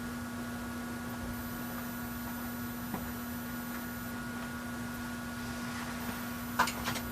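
Steady electrical hum of an E353 series electric train standing at a station platform, a constant low drone with faint higher steady tones. A few sharp clicks come shortly before the end.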